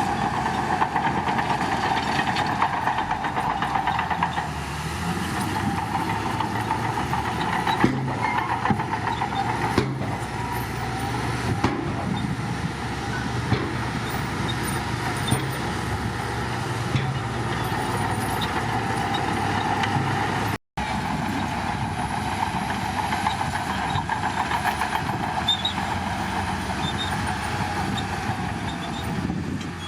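Shantui bulldozer running steadily under load, a diesel engine drone mixed with scattered clanks, probably from the tracks. The sound cuts out for a split second about two-thirds through.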